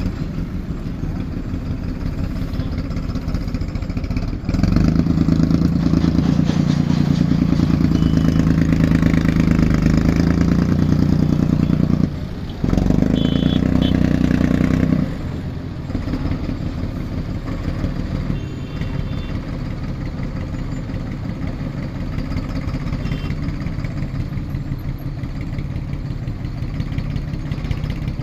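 Tractor diesel engines running. About four seconds in, an engine revs up and holds a louder, steady note for about ten seconds, dropping out briefly near the middle, then settles back to idle.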